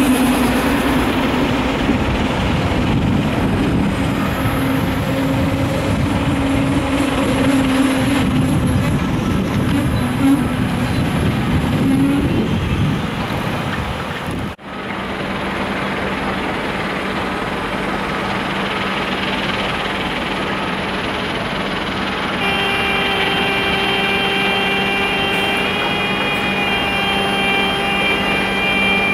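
SNCB double-deck electric train rolling slowly along the platform with a low wavering drone from its running gear and drive; the drone rises briefly and stops about twelve seconds in as the train comes to rest. After a cut, the standing train gives off a steady electrical hum, and a higher whine of several pitches sets in over the last seven seconds.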